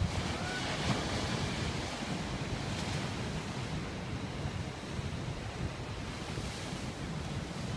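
Atlantic surf breaking and washing over a black volcanic rock reef, a steady rushing wash with a low rumble, with wind buffeting the microphone.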